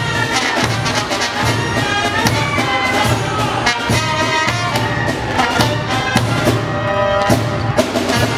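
Sinaloan banda music: a brass band with trumpets and trombones over a steady drum beat.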